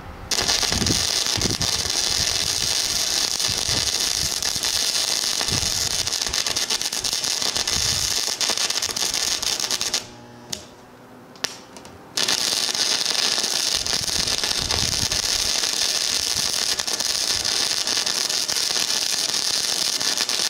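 Flux-core wire welding arc crackling steadily from a Harbor Freight 90-amp flux-core welder converted to DC output, run at maximum amperage and wire feed speed 6. The arc stops for about two seconds midway, then starts again.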